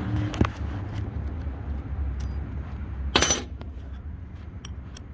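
Light metallic clicks and clinks of steel spade bits being handled and swapped in an impact driver's quick-change hex chuck, with one louder short metal clatter about three seconds in, over a steady low background rumble.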